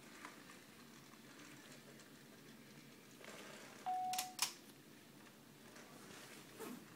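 Sony Aibo ERS-210 robot dog giving a short, steady electronic beep about four seconds in, lasting about a third of a second. Sharp clicks mark the start and end of the beep, and another click follows just after, against faint room noise with a few light handling clicks.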